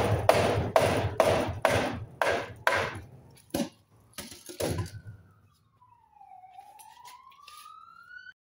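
Claw hammer blows on the top of a termite-eaten timber patio post, about two and a half a second, knocking it loose from the beam; the blows grow quieter and stop about three seconds in, followed by two single knocks. After that a faint whine falls and then rises in pitch for about three seconds.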